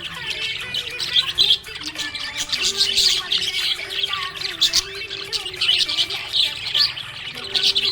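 Budgerigar chirping and chattering, a rapid, continuous run of short high chirps.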